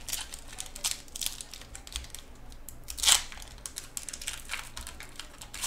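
Foil Pokémon card booster pack wrapper crinkling in the hands and being torn open, a run of sharp crackles with one louder crackle about three seconds in.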